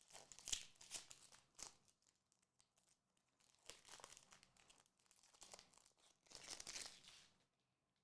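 Quiet crinkling of a foil Pokémon booster pack wrapper, in several short bursts with gaps between, stopping about seven and a half seconds in.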